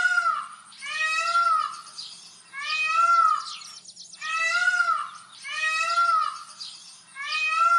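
Kitten meowing over and over, about six high-pitched calls, each under a second long and rising then falling in pitch.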